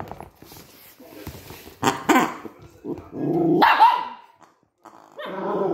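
Maltese dog barking and growling at a new toy it is wary of: two sharp barks about two seconds in, then two longer growling barks.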